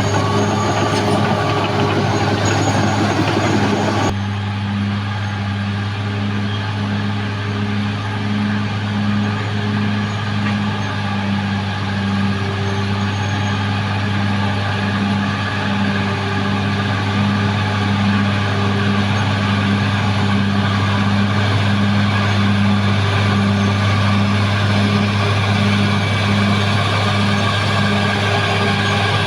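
Caterpillar D6R XL bulldozer's diesel engine running steadily at work, with a regular pulsing beat in its note. A louder, higher clatter drops away about four seconds in.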